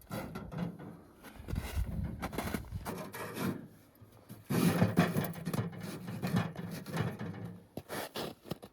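Dry wood being handled and worked: irregular scraping and rubbing with small cracks, busier and louder from about halfway through.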